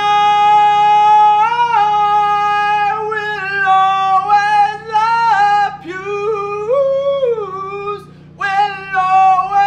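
A man singing without words in a high falsetto: long held notes that slide up and down in pitch, broken by a few short pauses.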